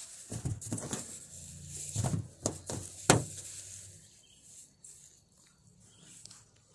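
Handling noise from a sand-filled satin plush lizard being squeezed in the hand: rustling fabric and shifting sand with a run of sharp clicks, the loudest about three seconds in, then quieter rustling.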